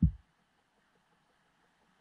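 A single short, low thump at the very start, dying away within a quarter second, followed by faint background hiss.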